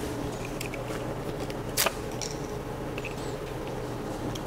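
Steady low room hum with a few faint clicks and rustles of small objects being handled, the sharpest click just under two seconds in.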